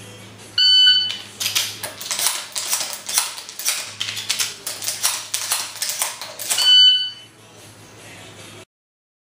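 A shot timer's high beep, then a fast run of clicks and clacks as shotgun shells are pulled from belt-mounted shell carriers and pushed through the loading port into the magazine tube of an FNH SLP Mk1 shotgun, with a second timer beep near the end.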